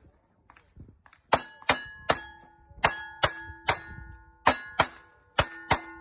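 Ten quick gunshots from a cowboy action shooter, each followed by the ringing clang of a steel target being hit. The shots come in short runs about half a second apart, starting about a second and a half in.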